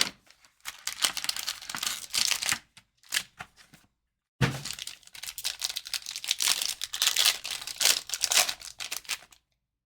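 Trading-card packaging being torn open and crinkled by hand. There are two stretches of crackly ripping, with a brief pause between them about four seconds in.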